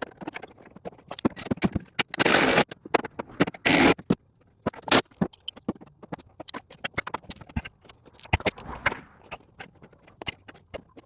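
Hand tools working on tailgate hardware while a bolt is refitted: scattered, irregular metal clicks and taps, with two longer scraping noises about two and three and a half seconds in.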